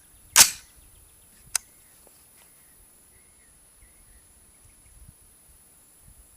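AR-15 being charged: the charging handle is pulled back and let go, and the bolt carrier slams forward to chamber a 5.56 round with one loud metallic clack about half a second in. A sharp single click follows about a second later.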